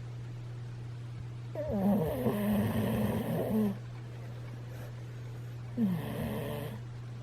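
A sleeping pet snoring: two snores, a long one of about two seconds and a shorter one near the end.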